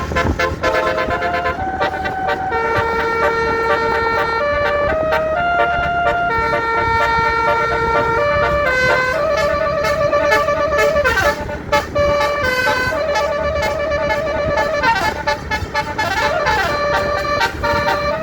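Telolet Basuri musical bus horn playing a tune of held notes that step up and down, with a wavering note and a few sliding notes past the middle.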